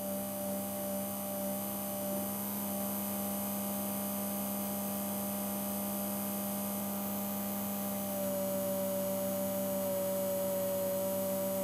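Hornby P2's original small can-type DC motor with brass flywheels running offload, a steady hum with a higher whine above it. About eight seconds in it gets slightly louder and its pitch shifts a little. The motor varies in speed as it runs, the fault blamed for the locomotive's jerky running.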